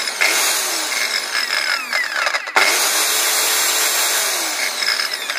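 Skil Clic 560 W belt sander's electric motor running at full speed in an even, continuous run. It stops for an instant about two and a half seconds in and starts straight back up. It runs without jerking on newly fitted carbon brushes.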